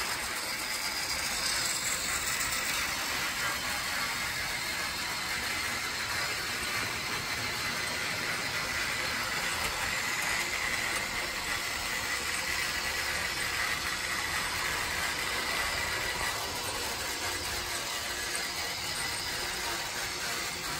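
Battery-powered TrackMaster toy engine's small electric motor and plastic gearbox whirring steadily as it runs along plastic track pulling a rake of coaches.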